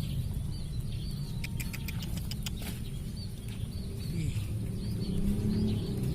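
Steady low rumble with small birds chirping over it, and a quick run of sharp clicks about two seconds in.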